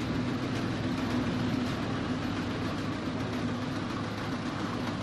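Self-propelled forage harvester running steadily in the field, a continuous engine drone with a low hum.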